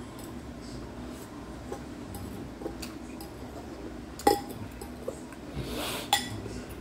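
Two sharp clinks of tableware: the first, the loudest, about four seconds in, and the second near the end, just after a brief swishing noise. A steady low room hum runs underneath.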